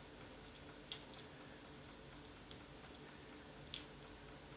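Two sharp clicks about three seconds apart, with a few faint ticks between them, from a hand tool working a small piece of thin glass as its corners are trimmed off.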